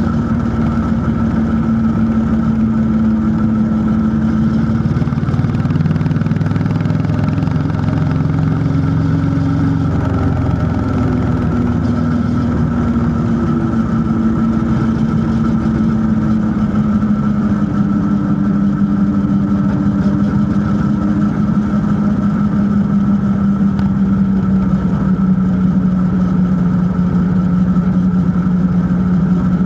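Honda CB350 H'ness single-cylinder engine running steadily under way, its even note drifting slightly lower over the second half.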